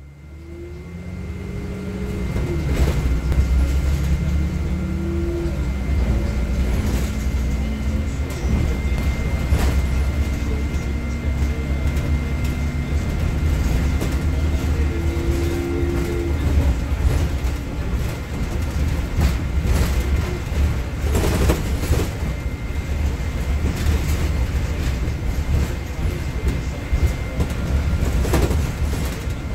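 Cabin noise of a Nova Bus LFS city bus under way, fading in over the first couple of seconds: a steady low engine and road rumble. Through the first half the engine's pitch climbs and drops back several times as the bus accelerates through its gears. Scattered knocks and rattles come from the body, and a faint steady high whine runs throughout.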